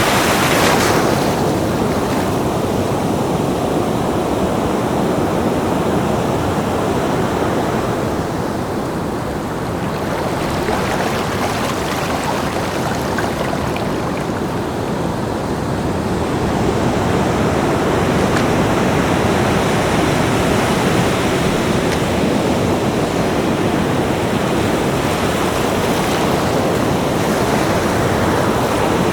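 Ocean surf washing onto a beach as a continuous roar of breaking waves. It eases a little about a third of the way in and swells again past the middle.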